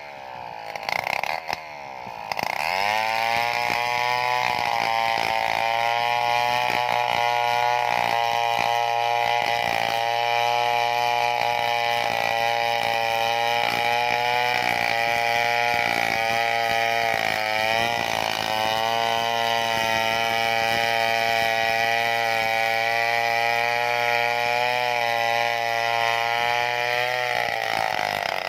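Stihl 070 two-stroke chainsaw idling briefly, then revved up about two seconds in and held at full throttle as it rip-cuts a log lengthwise into planks. Its pitch sags briefly a couple of times as the chain bites under load.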